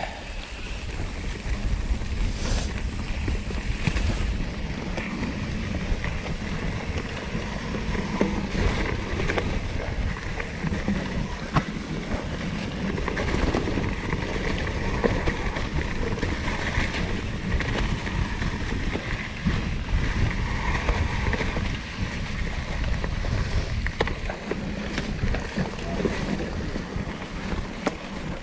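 Mountain bike riding over a dirt trail: a steady rumble of plus-size tyres and wind buffeting the microphone, with scattered clicks and rattles from the hardtail over bumps.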